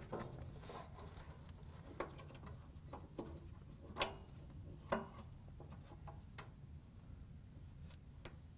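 Faint scattered clicks and taps of a Whirlpool dryer's drive belt being routed around the idler pulley and motor pulley while the idler arm is held back by gloved hands. The two clearest knocks come about four and five seconds in.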